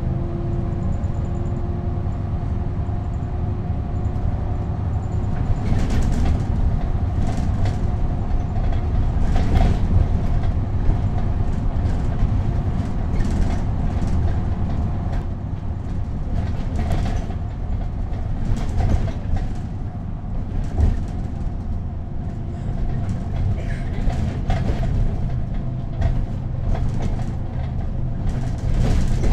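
Inside a 1993/94 Neoplan N 4016 city bus under way: the engine and ZF automatic transmission run with a steady low rumble and a steady whine. From about six seconds in, the body and interior fittings rattle and knock again and again over the road.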